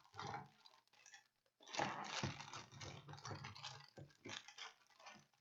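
Irregular clicking and rustling of plastic packaging being handled as an action figure is unwrapped, with a short pause about a second in.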